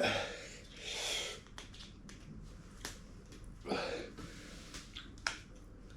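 A man breathing out hard twice, reacting to the burn of an extremely hot chilli product, with a few small sharp clicks in between.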